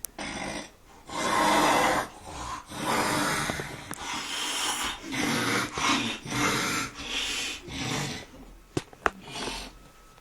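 Snoring: a run of noisy breaths, about one or two a second, the loudest about a second in. Two sharp clicks near the end.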